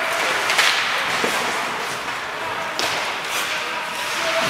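Ice hockey play: skates scraping on the ice, with a few sharp knocks from sticks and puck, about half a second in and again near three seconds.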